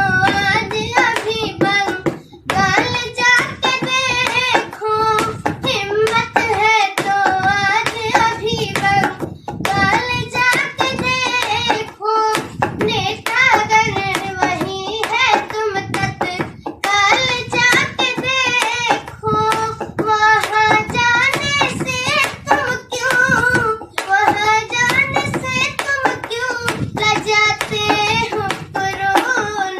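A child singing a song, with sharp hand-struck beats keeping a steady rhythm under the voice.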